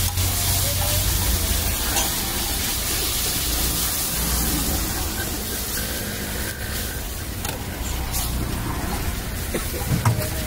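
Pav frying in butter and masala on a flat iron tawa, a steady sizzle with a few clicks of a metal spatula against the griddle, over a low rumble of street traffic and background voices.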